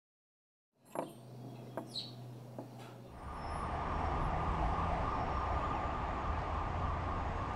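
Silence, then a low steady hum with a few light clicks and a short rising chirp. About three seconds in, a steady rumble of street traffic takes over.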